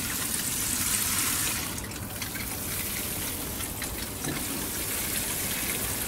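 Water showering from the rose of a plastic watering can onto compost in a plastic bucket: a steady hiss of spray that eases a little about two seconds in.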